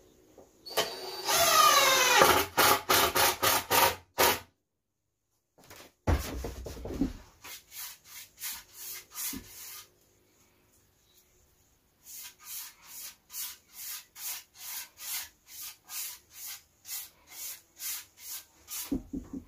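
Abrasive rubbing on a painted wooden sign: hand-sanding strokes, back and forth at about two a second, with a pause in the middle. A louder, faster burst of scraping with a falling whine comes in the first few seconds.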